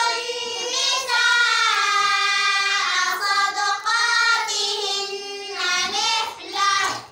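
A group of girls chanting together in unison: a melodic Qur'anic-style recitation (qira'a) with long, drawn-out notes that stops just before the end.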